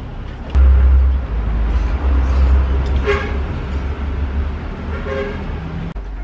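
Low rumble of a passing motor vehicle, starting suddenly about half a second in, with short horn toots about three seconds in and again near five seconds.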